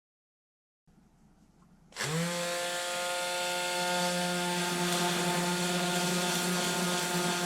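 An electric power tool switches on about two seconds in. Its whine rises quickly as the motor spins up, then it runs at a steady speed.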